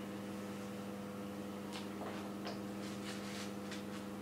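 A steady electrical hum, with a few faint soft clicks and rustles in the middle.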